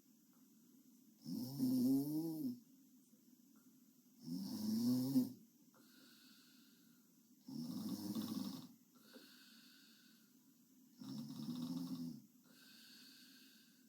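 A young woman snoring in her sleep: four loud, rasping snores about every three seconds. Each is followed by a softer out-breath carrying a faint whistle.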